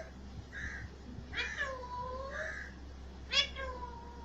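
Caged parrot calling: two drawn-out calls about two seconds apart, each sliding down and back up in pitch, with softer short notes in between.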